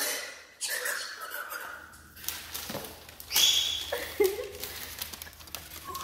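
An angry galah cockatoo giving short squawks and mumbled calls, with a sharp high squawk a little past halfway, among scuffles and small taps on crumpled packing paper and a hardwood floor.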